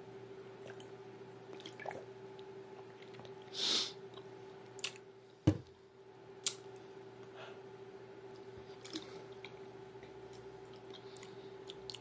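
Wet mouth and throat sounds of a red drink being poured from a plastic bottle straight into an open mouth and swallowed. There is a short rushing burst of noise about four seconds in, then a few sharp clicks and knocks, the loudest about five and a half seconds in, over a faint steady hum.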